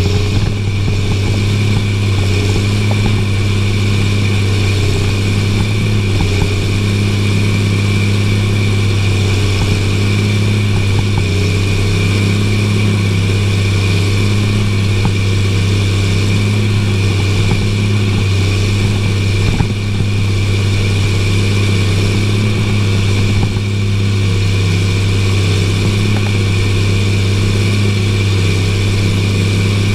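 Caterpillar tractor's diesel engine running steadily under load while pulling a cultivator through the soil, heard from inside the cab as a constant low drone.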